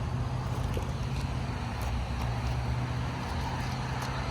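Steady low engine hum with a few faint clicks over it.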